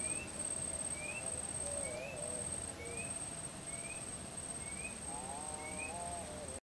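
Outdoor ambience of insects and a bird. An insect shrills in one steady high tone broken by short gaps, and a bird gives a short rising chirp about once a second. Faint wavering lower tones from farther away lie underneath.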